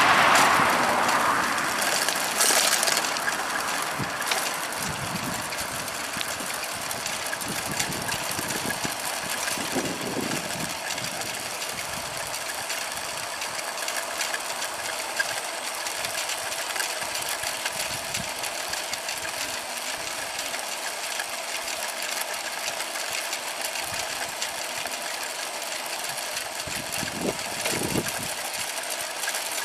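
A vehicle passes and fades out over the first two seconds. After that a small motor or machine runs steadily, with a light rattle.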